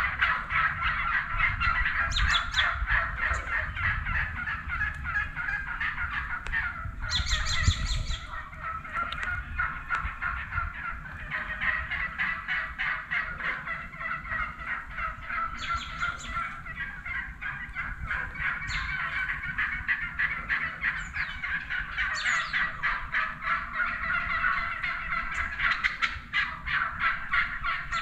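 A big flock of wild turkeys calling continuously, a dense chatter of overlapping rapid calls, with louder gobbles breaking through several times, the strongest about seven seconds in.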